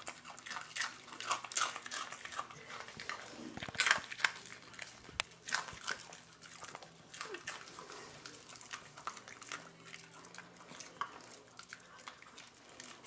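Miniature pinscher crunching Cheerios off a tile floor: quick crisp crunches, densest in the first half with the loudest around four seconds in, thinning out later.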